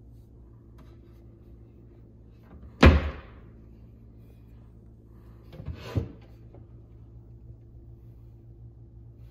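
Wood-grain bar cabinet doors being handled: one loud knock of a door shutting about three seconds in, then a quieter cluster of knocks and rattles about six seconds in as a door is swung open. A faint steady low hum runs underneath.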